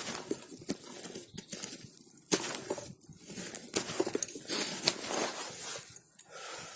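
Pocketknife blade whittling a partly rotten stick, irregular scraping cuts with sharp clicks as the blade bites and shavings come away.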